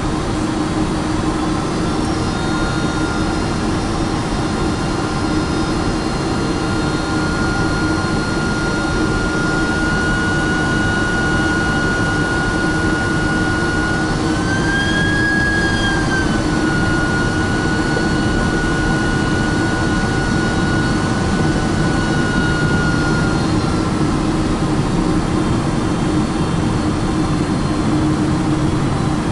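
Boeing 767-400 jet engine heard from inside the cabin during final approach and landing: a steady engine noise with a fan whine above it. The whine rises briefly about halfway through, then settles and fades away near the end.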